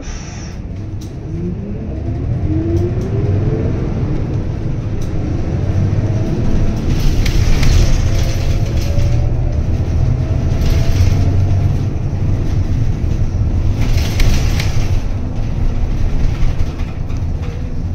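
City bus pulling away and accelerating, heard from inside the cabin: a low engine drone that grows louder, with a drivetrain whine that climbs in pitch, drops back and climbs again. Twice there is a brief hiss.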